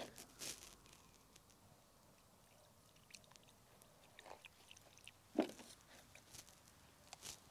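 Faint, scattered rustles and small clicks of handling, with one sharper knock about five and a half seconds in.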